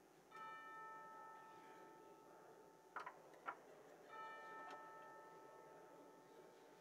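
Chime struck twice, about four seconds apart, each note ringing for about two seconds before fading; two faint clicks come between the strikes.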